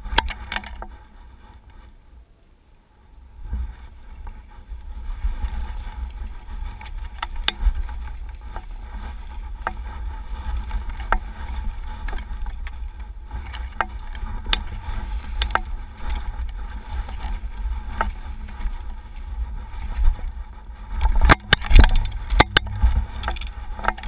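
Skis sliding and scraping through fresh snow on a downhill run, over a heavy low rumble with scattered clicks and knocks. It is quieter for the first few seconds, picks up about three and a half seconds in, and is loudest with several bumps near the end.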